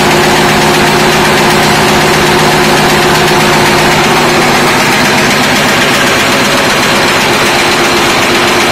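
Automatic wire nail making machine running at speed: a loud, fast, steady mechanical clatter from its heading hammer and cutters working the wire.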